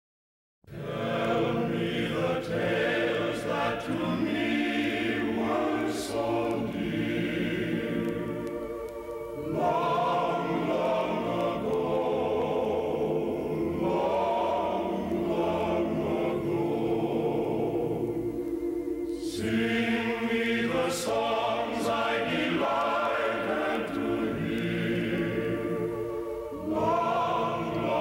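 Choral music: a choir singing held, changing chords, starting just after a moment of silence.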